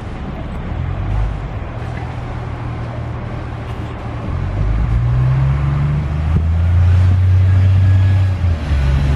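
SEPTA New Flyer 40-foot transit bus driving past, its diesel engine running steadily. The engine note steps up in pitch about halfway through as the bus gathers speed, and it is loudest near the end as the bus goes by.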